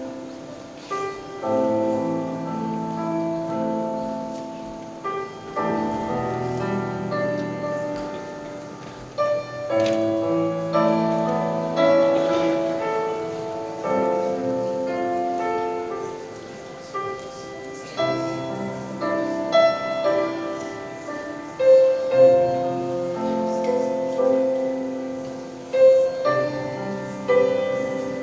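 Slow instrumental music, led by piano, with chords changing every second or two.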